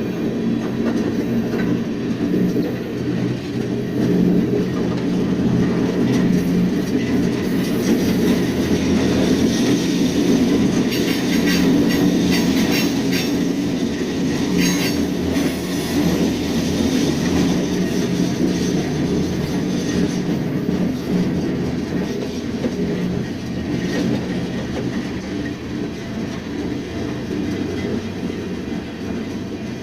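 Freight train rolling along the track, heard from aboard a freight car: a steady rumble of wheels and cars, with a stretch of sharper metallic clatter about a third of the way in.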